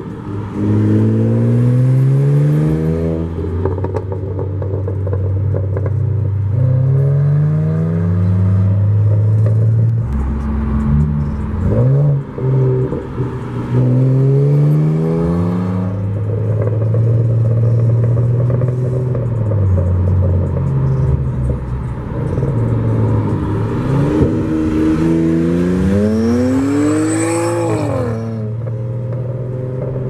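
Car engine accelerating hard in several rising pulls, each ending in a sharp drop in pitch as it shifts up, then running steadily, with one more rev near the end that rises and falls away.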